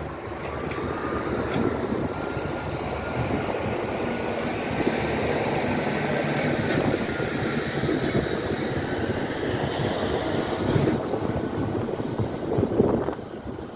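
Steady rumble of motor traffic with a faint whine that slowly changes pitch. A tractor-trailer passes close by near the end, the loudest moment.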